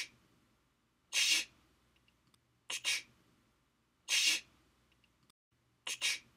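A repeating sound effect: a quick double click, then about a second later a short hiss, the pair coming round about every three seconds, over a faint low hum.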